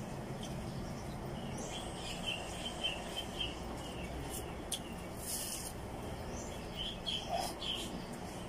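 A person chewing food, with a few sharp crunches a little past the middle, over a steady low hum. Two short runs of high bird-like chirps come in, one about two seconds in and one near the end.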